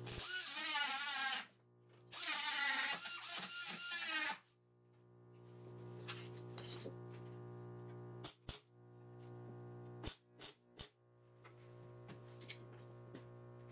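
Two loud bursts of MIG welding crackle in the first four seconds, each about one to two seconds long, laid over steady background music that carries on alone afterwards.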